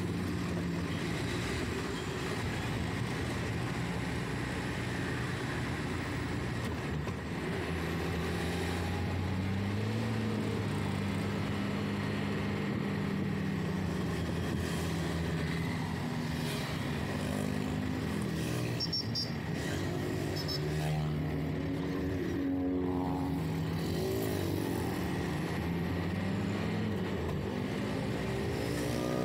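Engine and road noise of a moving vehicle heard from inside its cab: a steady low engine hum whose pitch rises and falls with speed, over tyre and wind noise.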